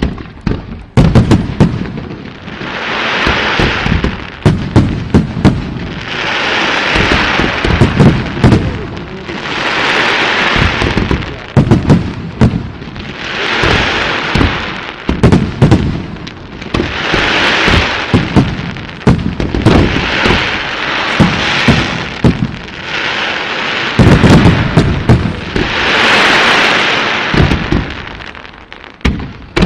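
Aerial fireworks display: a dense run of booming shell bursts and sharp reports throughout, with swells of hiss every three to four seconds as effects go off.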